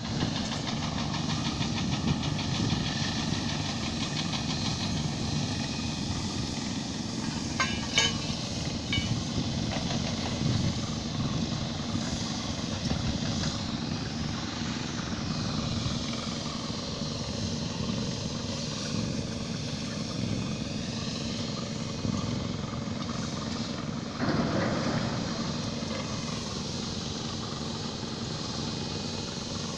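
Heavy construction machinery running, a steady engine drone that slowly shifts in pitch, with one sharp knock about eight seconds in.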